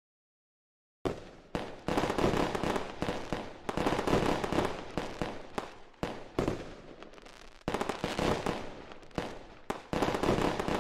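Fireworks bursting and crackling: a dense run of pops and bangs coming in waves, starting about a second in after silence.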